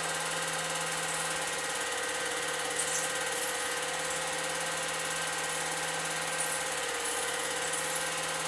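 8mm film projector running: a steady mechanical whir and hum with an even hiss and a few faint ticks.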